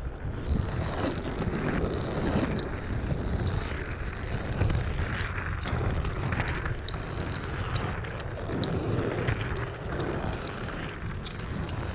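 Small aggressive-skate wheels of inline skates rolling on pavement: a continuous rumble with occasional sharp clicks.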